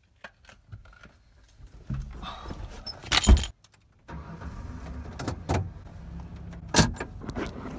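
A car door shuts with a loud thump, then the engine starts on the key and settles into a steady idle, with keys jangling on the ignition and a sharp click near the end.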